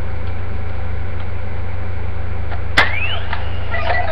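Steady low electrical hum, with one sharp click about three seconds in, followed by a short rising whistle-like tone.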